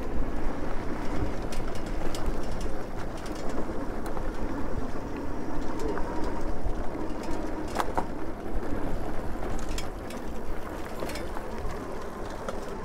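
Super73 electric bike riding over a dirt trail: tyres rolling on packed dirt and wind on the microphone make a steady rumbling noise, with scattered sharp clicks and rattles.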